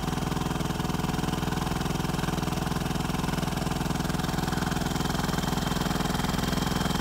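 A small engine idling steadily, with a fast, even beat.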